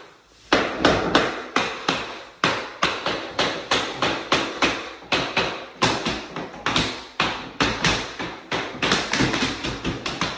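Tapping block knocking laminate floor planks together along a whole row: light, quick taps, about three a second, after a brief pause at the start. The row is already nearly locked, so it needs only small taps to close the joints.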